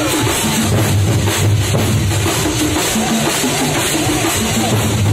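Kerala Thampola percussion ensemble playing loudly on large barrel drums slung at the waist, with heavy bass strokes.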